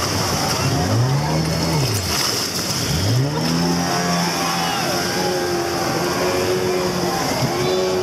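Outboard motor revving up and down twice, then running at a steady pitch, over the rushing water of a rapid.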